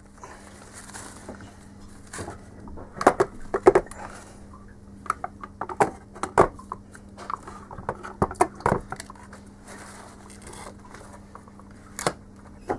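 Irregular knocks, clicks and scrapes as a heavy metal-cased 3 kW spindle motor is handled and seated in a laser-cut acrylic carriage, its casing bumping against the acrylic plates. The knocks come in small clusters, with one sharp click near the end.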